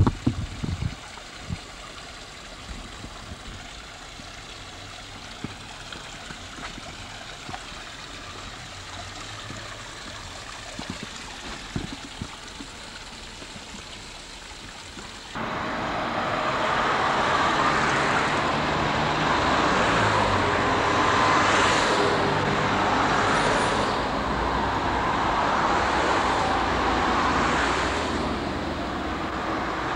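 Faint outdoor background with a few knocks, then about halfway through a sudden change to road traffic: cars passing one after another on a street, the noise swelling and fading as each goes by.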